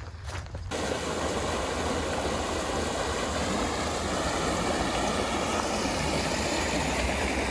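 Floodwater rushing steadily, an even noise that starts abruptly about a second in.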